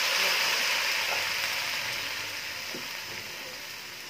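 Sweet corn, broccoli and carrots sizzling in a hot metal wok during a stir-fry: a steady frying hiss that slowly fades.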